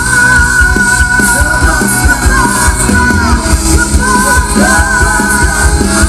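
Live rock band playing loud over a PA: a singer holds long, wavering notes above pounding drums and bass.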